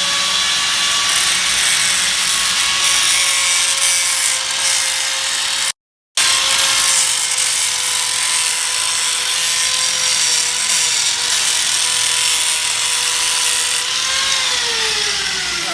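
Power grinder grinding metal off a snapped frame plate before re-welding: a steady high whine over a harsh hiss. The sound drops out for a moment about six seconds in, and near the end the whine falls in pitch as the grinder spins down.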